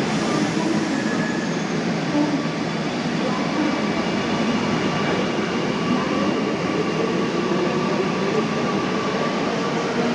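Kochi Metro train running: a steady rushing noise with faint, thin whining tones over it.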